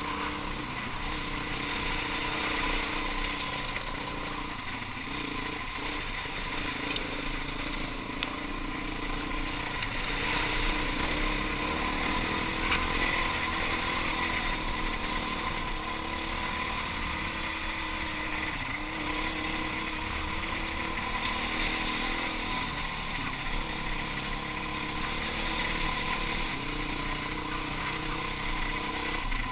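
Enduro motorcycle engine running under way on a rough dirt track, its pitch rising and falling as the throttle is worked.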